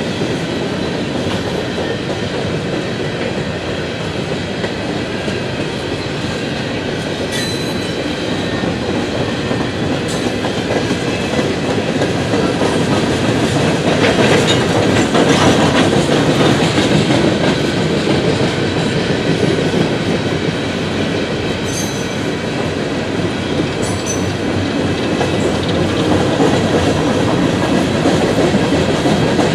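Empty coal hopper cars of a freight train rolling past: a steady rumble and clatter of steel wheels on the rails, swelling a little about halfway. A few brief high wheel squeals cut through it.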